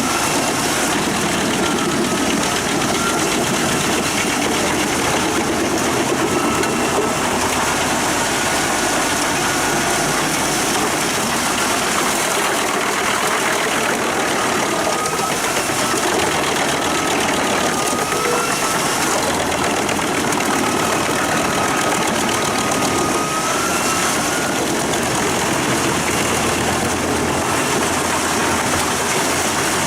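Pezzolato PTH drum wood chipper, driven by a CLAAS Xerion 5000 tractor, running steadily under load as its steel drum blades cut logs into chips. The sound is a loud, continuous mix of steel cutting wood and engine noise, with a steady screeching whine wavering above it.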